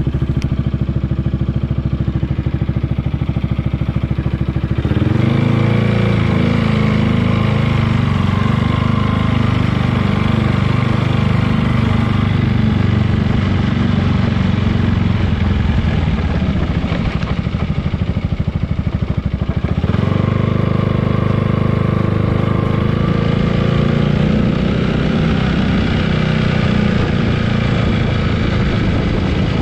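Yamaha XMAX 300 scooter's single-cylinder engine idling steadily after starting, then raised to a higher speed about five seconds in. It dips briefly near twenty seconds and picks up again. The engine is being run to check whether a newly fitted mudguard still rattles against it.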